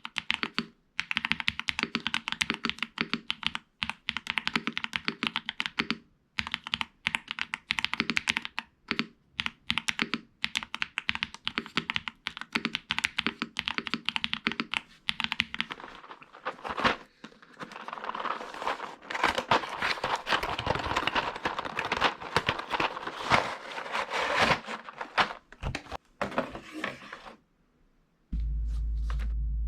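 Typing on a Galaxy 65 mechanical keyboard: rapid key clicks in runs with short pauses, which turn into a faster, denser clatter about halfway through. Near the end the typing stops, and a steady low hum starts abruptly.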